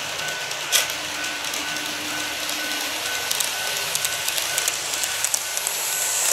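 KATO N-gauge 381 series model train running on its track, a steady rolling hiss from the wheels that grows louder as the train comes close. Light clicks from the rail joints come more often toward the end, with one sharper click about a second in.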